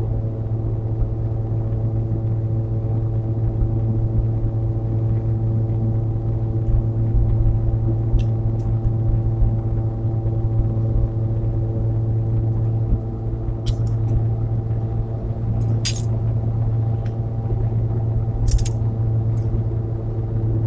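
Steady in-cabin drone of a 2016 Nissan Versa's 1.6-litre four-cylinder engine and tyres cruising at highway speed: a low hum with a few steady tones above it. A few brief light rattles come from inside the cabin, mostly in the second half.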